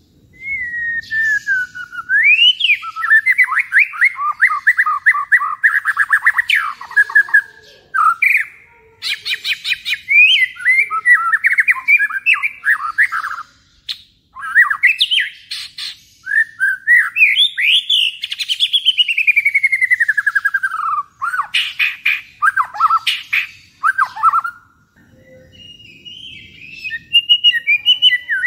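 White-rumped shama singing loud, varied phrases of rapid repeated whistled notes and falling glides, with short pauses between phrases.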